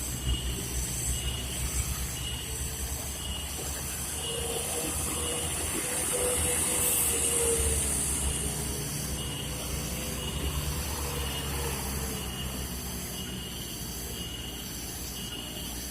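Heavy truck's diesel engine labouring up a steep grade, with a pulsing low rumble and a hiss. It grows louder to a peak about halfway through as the truck passes, then fades.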